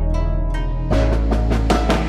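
Background music: plucked string notes over a steady bass, growing busier about a second in.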